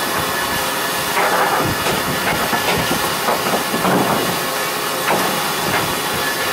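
Steady hiss of steam from a steam locomotive venting, with louder irregular sounds over it about a second in and again around four seconds.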